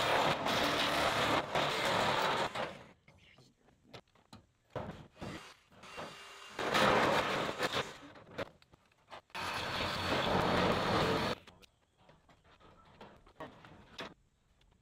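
Cordless power shears cutting a ribbed steel siding panel in three runs of a few seconds each, with light metal clicks and handling in the pauses between.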